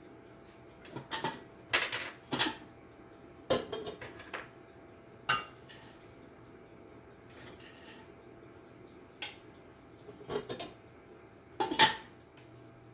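Metal spoon and cookware clinking and knocking as a pot of green beans is seasoned and stirred: a dozen or so separate clanks in irregular clusters, some with a brief ring.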